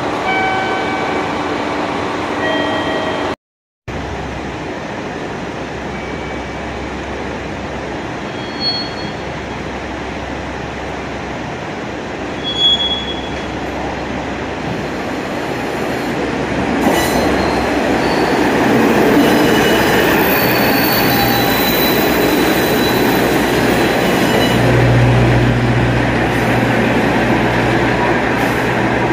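JR Shikoku KiHa 47 diesel railcar pulling in alongside the platform. The noise of its engine and wheels swells from a little past halfway, with high wheel squeals as it slows and a deep diesel drone near the end as the cars pass close by.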